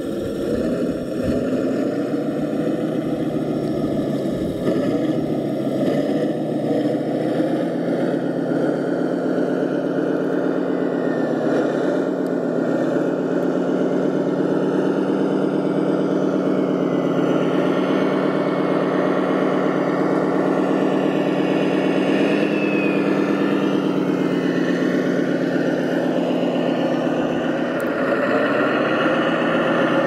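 Remote-controlled scale MAN 8x8 dump truck driving, giving a steady diesel-like engine drone that rises and falls slightly in pitch as it moves.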